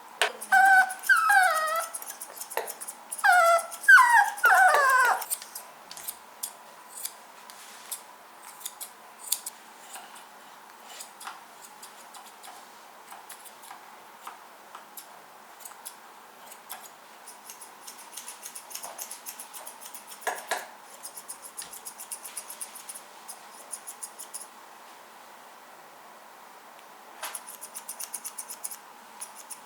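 Toy poodle puppy whining in several high, wavering cries over the first five seconds, then grooming scissors snipping through its coat in short clicks and quick runs of snips.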